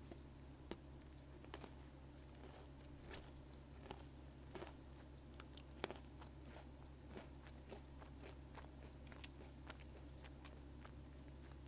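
Close-miked chewing of almond Pocky: crisp, irregular crunches and clicks as the chocolate-coated biscuit stick is bitten and chewed, with the sharpest crack about six seconds in. A faint steady hum lies underneath.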